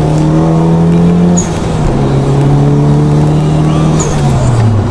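Mitsubishi 4B11T turbocharged inline-four of a converted car running on the road, heard from inside the cabin. Its note is steady, then drops in pitch about a second and a half in and again near the end, with a brief high chirp at each drop.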